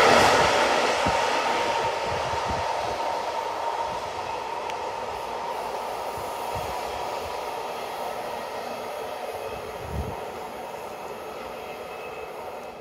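Container freight train's wagons rolling away on the track, the wheel noise fading steadily as the train recedes, with a thin steady ringing tone over it and scattered knocks from the wheels. One louder thump comes about ten seconds in.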